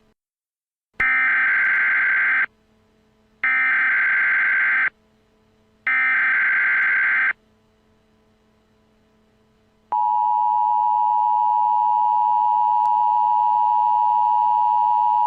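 Emergency Alert System tones. Three bursts of the SAME digital data header, each about a second and a half long and about a second apart, encode a National Weather Service dust storm warning. From about ten seconds in, the steady two-tone EAS attention signal sounds, announcing the alert.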